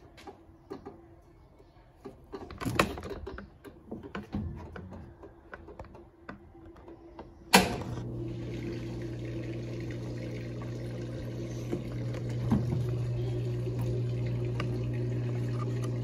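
Brastemp Baby Mondial top-loading washing machine: irregular small knocks and water sounds, then a sharp click about halfway through as its motor switches on and runs with a steady low hum.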